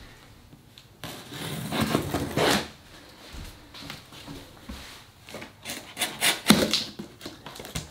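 Cardboard shipping box being opened by hand: a swell of rustling and rubbing about a second in, then a run of sharp cracks and scrapes from about five seconds in as the taped flaps are pulled apart.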